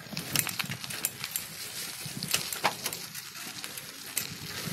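Bicycle rolling over a rough, potholed gravel road, its tyres and frame giving a run of irregular clicks and rattles over a steady noisy rumble.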